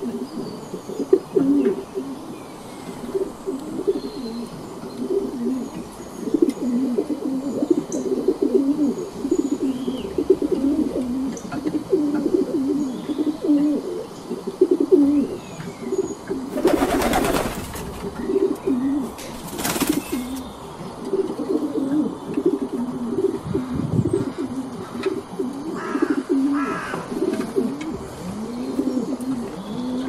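Wood pigeons cooing in repeated low, soft phrases, with faint chirps of small birds behind. About halfway through, two brief rushes of noise break in.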